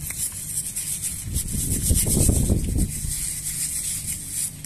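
A brush scrubbing carbon and oil deposits off a diesel engine piston in quick, rhythmic strokes, the bristles rasping on the piston.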